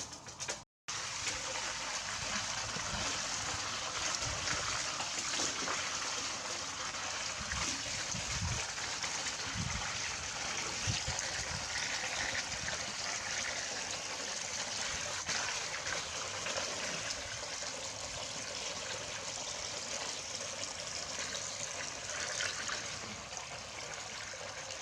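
Water running steadily in a stream, starting just under a second in, with a few low thuds partway through.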